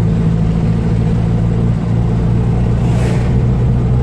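A 1976 Datsun B210 (B211)'s A12 four-cylinder engine runs as the car drives, misfiring from a blocked main jet in its Hitachi DCG 306 carburetor. Its note drops slightly about two seconds in, and a short hiss comes about three seconds in.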